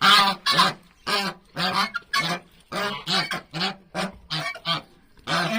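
Domestic waterfowl calling: a steady run of loud, short calls, about two a second.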